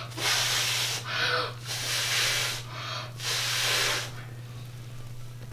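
Terry-cloth towel rubbed over a face in about five strokes, a rough scrubbing hiss that stops about four seconds in.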